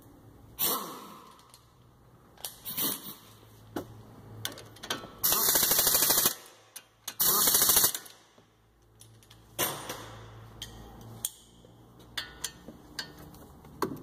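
Impact wrench run in two bursts of rapid hammering, about a second each, about five seconds in and again a second later, driving the Ford Focus front brake caliper bracket bolts tight. Sharp metal clicks and knocks of tools being handled come before and after.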